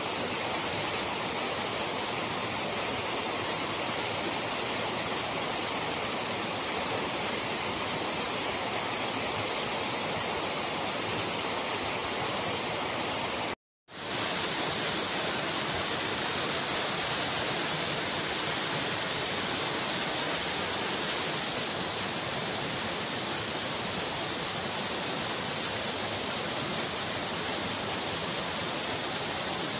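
Steady, even rush of a nearby waterfall, loud and constant, with a split-second gap of silence about halfway through where the recording cuts.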